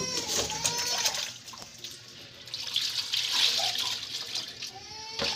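Tap water running and splashing, growing louder about two and a half seconds in.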